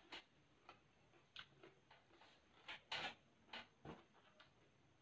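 Close-up chewing of fresh raw moringa leaves: faint, irregular soft crunches and wet mouth clicks, about two a second.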